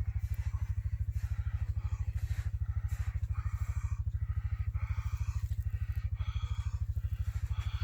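An engine idling steadily: a low, even pulse of about a dozen beats a second. Fainter voice-like sounds come over it in the second half.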